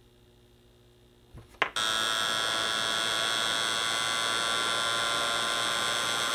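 A heat gun clicks on and its fan motor runs steadily with a high whine, shrinking the heat-shrink tubing over the soldered SCR leads. Before it, about a second and a half of quiet with a couple of small knocks.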